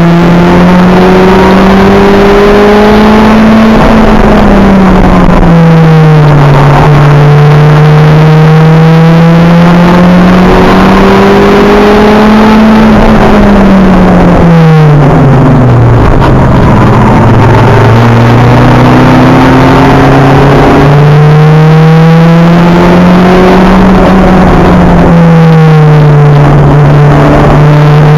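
Acura Integra race car engine heard from inside the car, very loud, pulling hard with its pitch climbing slowly. It falls away twice as the car slows for corners, then climbs again under acceleration.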